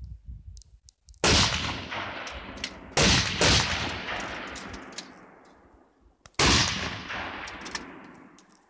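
Full-bore rifle shots on a shooting range: four sharp reports, two of them close together about three seconds in, each followed by a long echoing tail.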